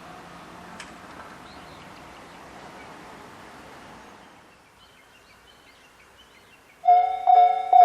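Faint outdoor background with small bird chirps. About seven seconds in, a Japanese railway level-crossing warning bell starts abruptly and rings loudly at a little over two strokes a second, signalling an approaching train.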